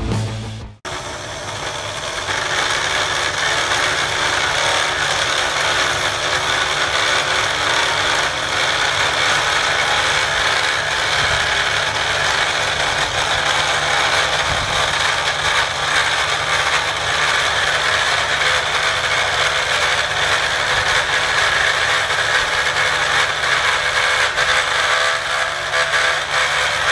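CNC1310 desktop mill's spindle running with a 1.5 mm end mill that slowly mills a metal plate, a steady grinding cutting noise that starts suddenly about a second in.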